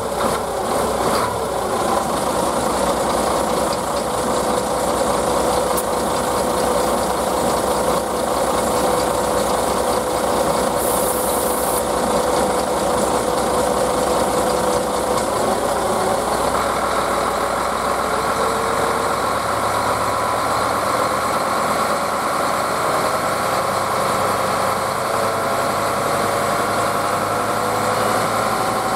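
Solaris Urbino 15 III city bus engine idling steadily. A higher steady hum joins a little past halfway.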